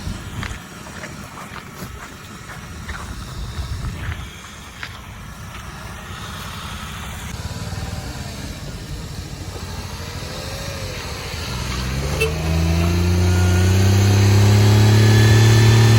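Scattered knocks and low rumble, then, about two-thirds of the way in, a Maruti 800's engine revs up, rising in pitch and holding a loud, steady note as the car is backed out of floodwater.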